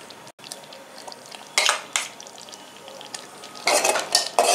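A spoon stirring thick sweet pongal in a metal pot: a short clatter about one and a half seconds in, then from near the end repeated scrapes and clinks of the spoon against the pot.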